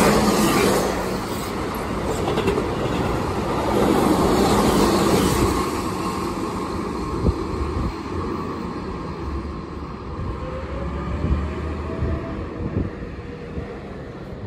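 Keihan 8000 series electric train passing through a station at speed. The rolling wheel-and-rail noise is loudest at first and fades steadily as the train runs away, with a few sharp clacks over rail joints in the second half.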